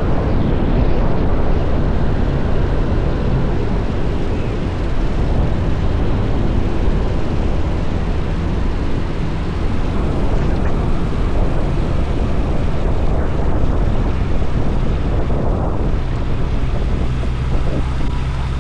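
Zenith 701's Rotax 914 Turbo four-cylinder engine and propeller running, heard from the wing strut under heavy wind buffeting on the microphone. The engine's low hum grows steadier and plainer near the end.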